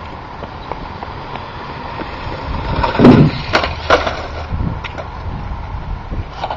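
Radio-controlled toy car landing a ramp jump: a loud thump about three seconds in, followed by two sharp knocks as it bounces and crashes.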